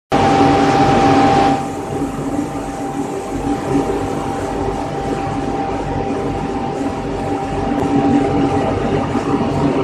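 Pellet mill production line machinery running steadily: a continuous loud machine drone with a thin steady whine, and an extra hiss that drops away about a second and a half in.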